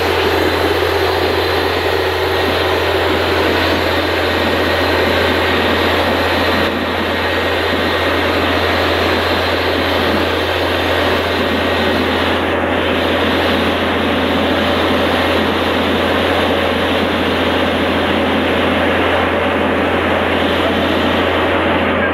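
Borewell rig blowing water out of the bore with compressed air: a loud, steady rush of air and spraying water over the constant low drone of the rig's engine and compressor.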